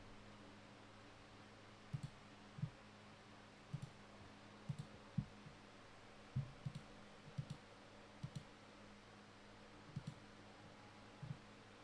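Faint scattered clicks, about a dozen, several coming in quick pairs, over a steady low hum.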